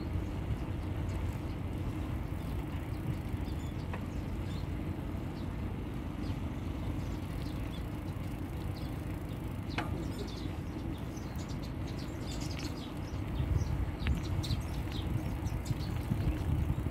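Steady low rumble of a bicycle ride on a paved path, from wind on the microphone and the tyres, a little louder near the end. Short high bird chirps come and go over it, most of them in the second half.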